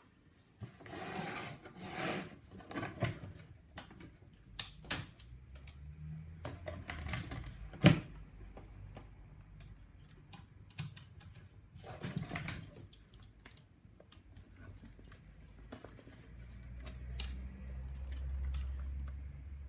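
Patria manual typewriter being worked by hand: scattered single key strikes and mechanical clacks, the sharpest about eight seconds in, with two longer rattling stretches near the start and around twelve seconds. A low rumble rises in the last few seconds.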